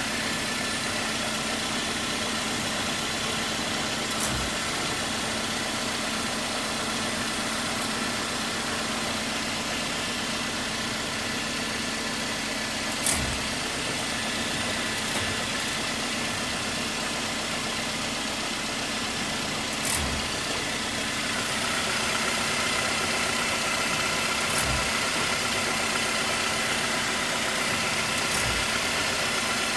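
2021 Jeep Wrangler Unlimited Rubicon running steadily with the grinding noise that the owner is recording. A few sharp clicks or knocks sound through it. About two-thirds of the way in it gets slightly louder and a higher tone joins.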